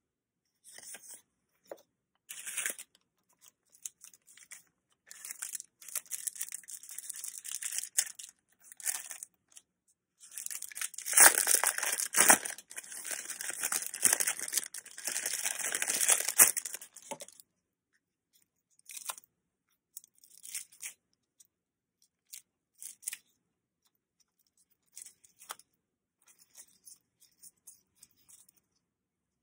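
Clear plastic packaging crinkling and tearing as it is handled and opened by hand. The crinkling is dense and loudest in a stretch about a third of the way in, then thins to scattered light crackles.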